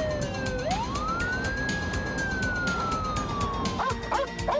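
Police car siren in a slow wail: falling in pitch, then sweeping up about half a second in and slowly falling again. Short quick rising-and-falling calls, about three a second, start near the end.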